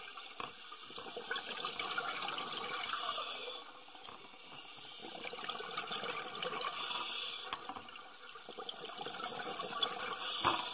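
Scuba diver breathing through a regulator underwater: a rushing, bubbling hiss of breath that surges about every three to four seconds.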